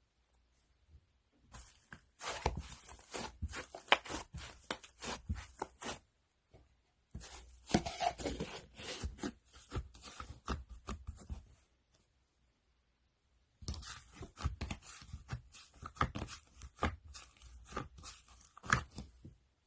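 Crunchy slime worked by hand, making dense crackling and popping in three long bouts with short pauses between them.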